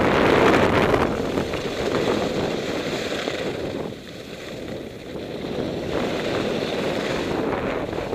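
Wind buffeting the microphone of a camera worn by a skier skiing downhill, a loud, even rushing that eases off about four seconds in and then builds again.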